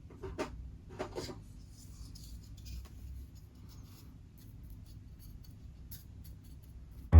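Small clicks and light rubbing of hobby tools on a plastic model kit, with a few sharper clicks about a second in and a faint low hum underneath.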